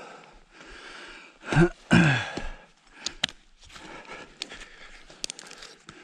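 A person breathing, with two short, loud sighs falling in pitch about a second and a half in, and a couple of sharp clicks later.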